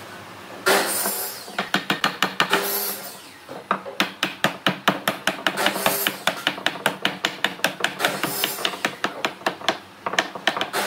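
Rapid, fairly even tapping or knocking on wood, about five strikes a second for several seconds, with a shorter run of taps about a second in.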